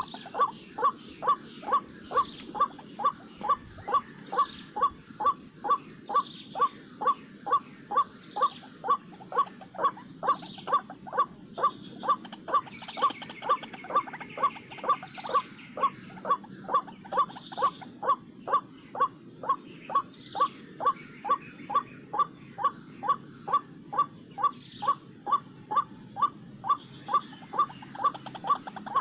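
White-breasted waterhen calls: a short, loud croaking note near 1 kHz repeated very evenly, about twice a second, without a break.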